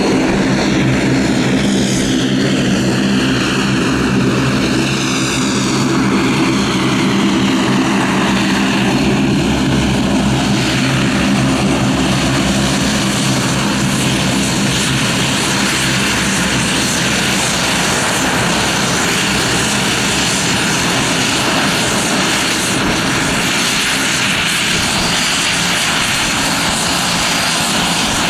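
Bombardier Dash 8 Q400 turboprop taxiing, its propellers giving a steady low drone with a turbine whine that falls in pitch over the first several seconds. About halfway through, the drone gives way to an even rushing engine and propeller noise.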